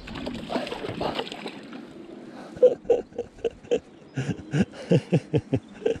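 A hooked twaite shad splashing at the surface as it is played toward the landing net. In the second half comes a run of short sharp clicks, about three to five a second.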